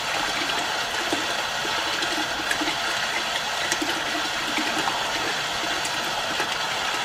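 Water pouring from a garden hose into a plastic bucket as it fills: a steady splashing rush.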